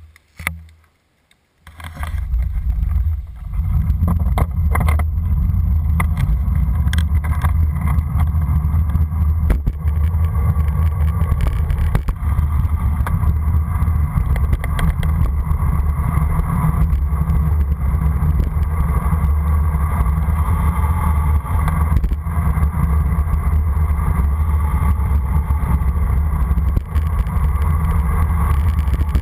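Wind rushing and buffeting over a bike-mounted camera's microphone as a road bicycle descends at speed, a steady loud low rumble that starts about two seconds in, with a few knocks in the first several seconds.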